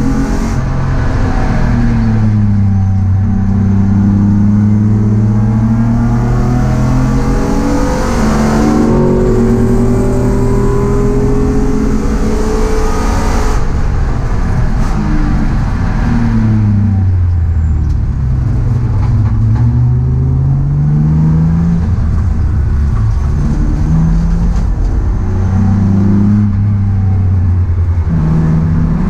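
Race car's engine heard from inside its stripped cabin under hard running on track. The engine note holds for stretches, then drops and climbs again several times with lifts and gear changes, over steady wind and road noise.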